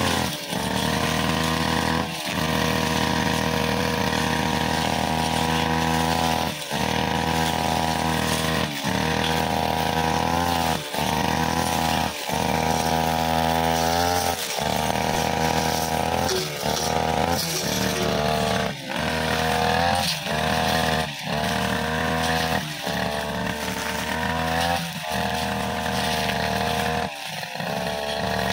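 Backpack brushcutter engine running at high speed as its sharpened blade cuts grass. The engine note dips briefly about every two seconds.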